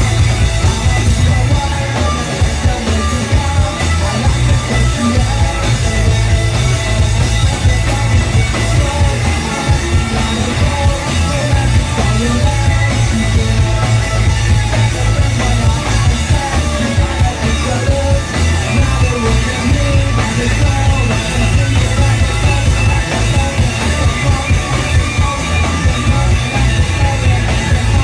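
Live rock band playing loudly without a break: a dense, unbroken mix with a heavy low end, in a long stretch after the sung verse.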